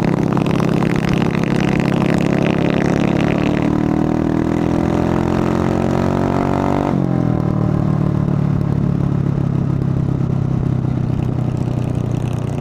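Motorcycle engine heard from on board while riding, its pitch climbing steadily as it pulls in gear. About seven seconds in it drops sharply with an upshift, then runs on steadily at a lower pitch.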